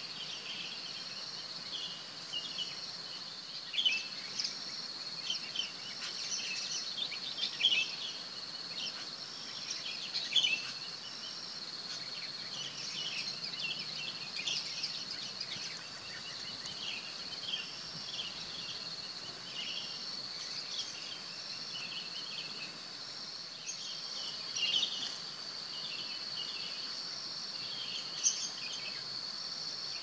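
A steady, high, unbroken insect drone, with many short, high bird chirps scattered over it. A few chirps are louder than the rest.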